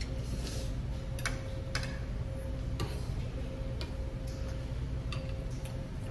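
Metal spoons clinking against ceramic bowls and an earthenware pot: about six separate light clicks spread irregularly, over a steady low hum.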